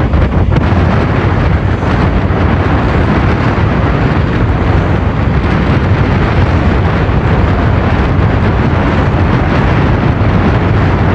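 Strong wind buffeting a phone's microphone aboard a small boat under way: a loud, steady rumbling roar.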